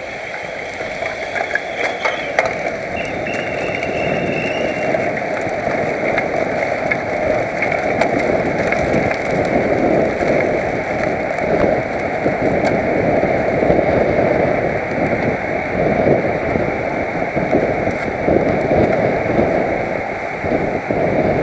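Wind rushing over a helmet-mounted camera's microphone while riding a road bike at speed, mixed with road noise. It builds over the first few seconds, then holds steady with small surges.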